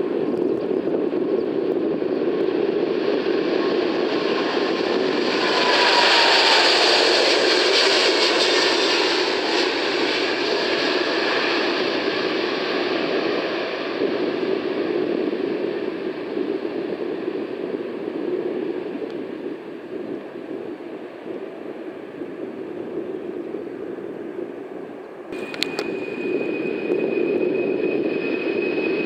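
Jet airliner engines passing close by: a steady noise that swells to its loudest a few seconds in, as a whine drops in pitch, then eases off. About 25 s in it changes abruptly to engine noise with a steady high whine that slowly rises.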